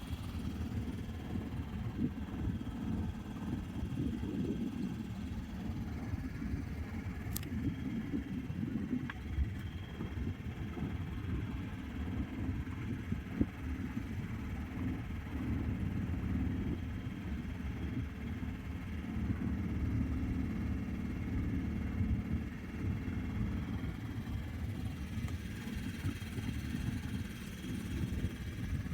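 Motorboat engine running steadily as the boat cruises, a low, even engine sound. There is a single sharp click about seven seconds in.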